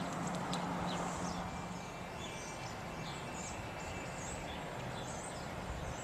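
Outdoor background ambience: a steady hiss with a low hum under it, and a small bird chirping repeatedly, about once a second, from about two seconds in.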